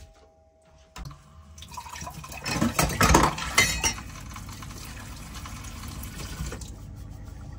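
Tap water running into a stainless steel sink while a glass is scrubbed and rinsed, with dishes clinking loudly about three seconds in. A click sounds about a second in, before the water starts.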